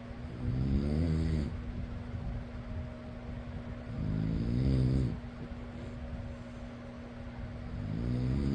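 A person snoring: three snores about every four seconds, each about a second long, over the steady hum of an electric fan.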